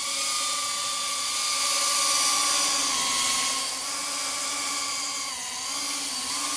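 Brushless motors and propellers of a 95 mm micro FPV racing quadcopter with 7000 kV motors, whining steadily as it flies close by. The pitch dips briefly twice, about three seconds in and again about five and a half seconds in.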